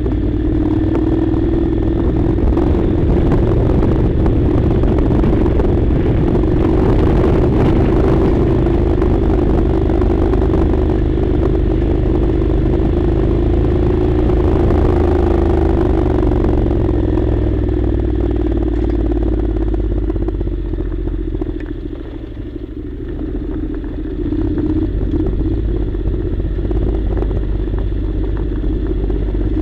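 Honda NC700's 670 cc parallel-twin engine running at a steady pace while riding off road. It eases off and goes quieter for a few seconds about two-thirds of the way through, then picks up again.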